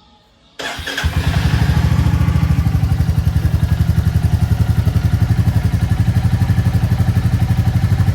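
Royal Enfield Classic 350 Reborn's single-cylinder engine cold-started: it cranks briefly about half a second in, catches almost at once and settles into a steady, even thump at idle.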